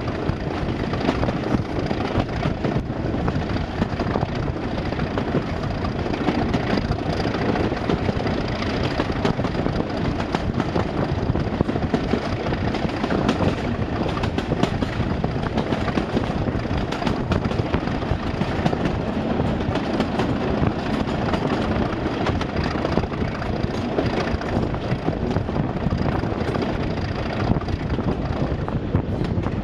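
Class 47 and Class 37 diesel locomotives working hard under power, with a steady heavy engine rumble that does not let up.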